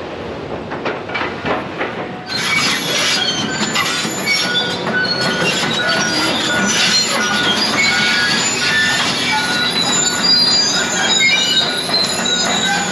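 Tracked demolition excavator working on a steel building frame: clanks of metal and debris for the first two seconds, then many short, high-pitched metal squeals.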